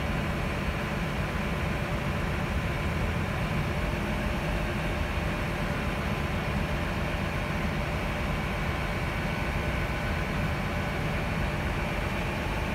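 Great Western Railway passenger train standing at the platform and idling: a steady low rumble with a few faint steady tones above it.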